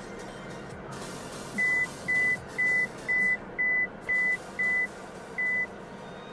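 An MG Gloster's in-car warning beeper sounds eight short, even beeps at one high pitch, about two a second, starting a little over a second in. A steady low vehicle noise runs underneath.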